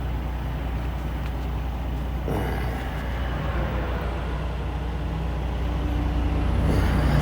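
Semi-truck's diesel engine running steadily at idle, heard from inside the cab, with a short burst of noise a little over two seconds in.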